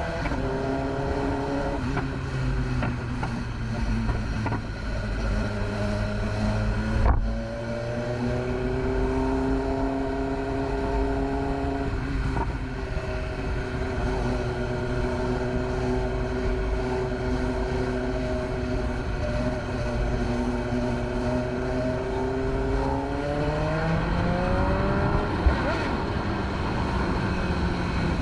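BMW S1000RR's inline-four engine running under way. Its pitch drops at first, then holds steady with a brief break about seven seconds in, and climbs again near the end as the bike accelerates.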